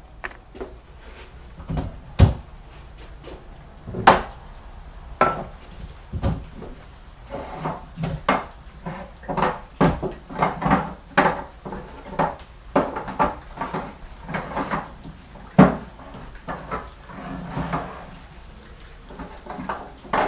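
Irregular knocks and clatter of objects being handled and set down in a workshop, busiest in the middle, with a few sharper knocks about two, four and fifteen seconds in.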